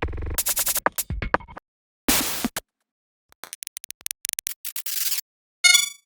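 Several digital glitch sound effects in a row, separated by short silences. First comes a choppy stuttering burst, then a short blast of static, then a run of rapid high clicks that grows denser, and near the end a brief warbling zap.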